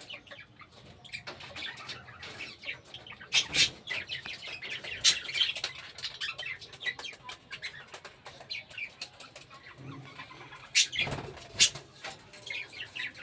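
A flock of lovebirds in an aviary chirping constantly in short, high calls, with a few louder bursts of wing flapping.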